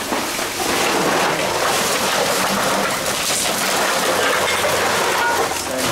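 Empty plastic bottles and drink cans crinkling and clattering against each other inside a large woven sack as it is lifted and handled. The rustle is continuous and dense.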